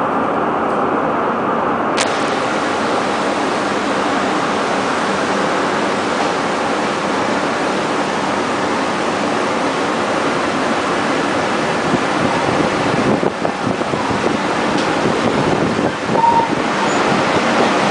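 Train running past at a railway station: a steady, loud rushing noise of wheels and air, with a short squeal about sixteen seconds in.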